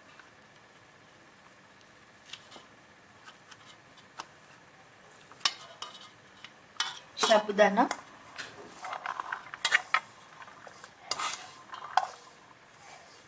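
Fingers crumbling boiled potato on a steel plate, with scattered light taps and scrapes against the metal. In the last few seconds, soaked sago pearls are tipped and scraped out of one steel bowl into another with a rattling clatter.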